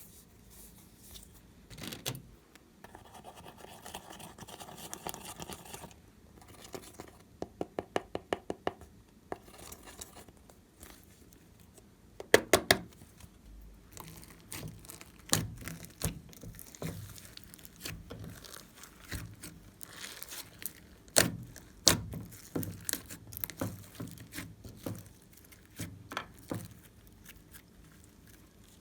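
Glossy slime being pressed, stretched and folded by hand, giving sticky clicks and pops. About seven seconds in there is a quick run of clicks, and there are sharp pops near twelve seconds and again around twenty-one seconds.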